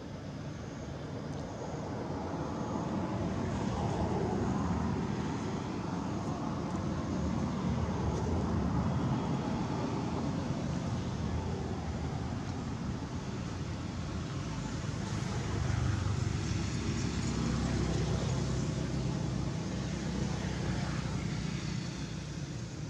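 Low rumble of road traffic, swelling a couple of seconds in and easing off near the end.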